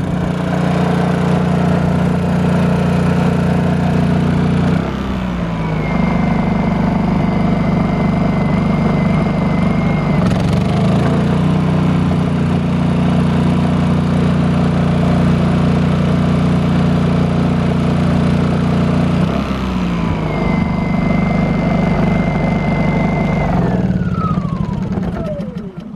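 Small portable inverter generator engine running under a space-heater test load, its engine speed shifting as the load comes and goes. A high steady whine comes in twice. Near the end the engine winds down in pitch and stops.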